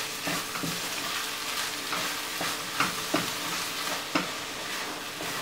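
Corned beef and cabbage sizzling in a frying pan while a wooden spoon stirs it, scraping and tapping the pan now and then.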